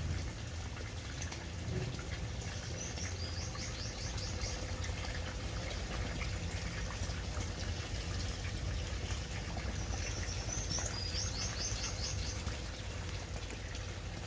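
Water running steadily in a pipe, a continuous rushing noise with a low rumble. A bird chirps in a quick run of high notes twice, about three seconds in and again about ten seconds in.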